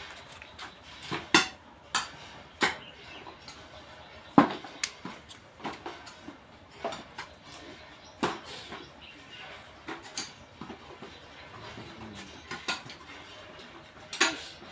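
Sweeping strokes on the ground of a cattle pen, irregular scrapes and scratches with a few sharp knocks, the loudest about four seconds in.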